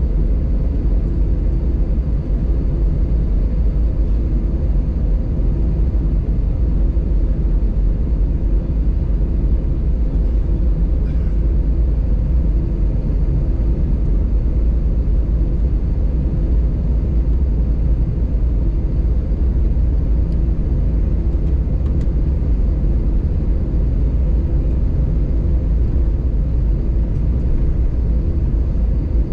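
Cabin rumble of an Airbus A320 taxiing: the engines at idle and the wheels rolling on the taxiway make a steady low drone with faint steady hums over it.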